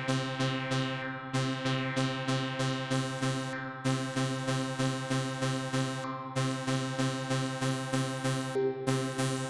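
Analogue Solutions Polymath paraphonic analog synthesizer playing a held chord, retriggered in an even pulse of about three notes a second. Each note's bright top closes down quickly, like a filter sweep, and a new note joins the chord near the end.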